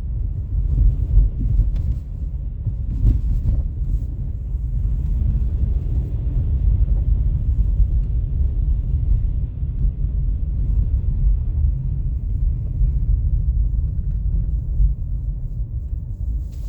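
Wind buffeting the microphone in a snowstorm: a heavy, uneven low rumble that rises and falls. A fainter hiss joins for several seconds in the middle.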